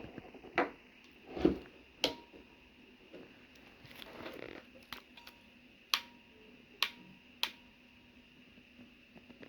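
Handling a homemade wire crimper while tightening it: a handful of separate sharp clicks and knocks, a second or so apart, with a soft rustle about four seconds in.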